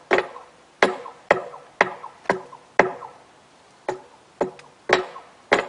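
Hammer blows on steel at a thermite-welded rail joint, about two a second with a short pause a little past the middle, each strike ringing briefly.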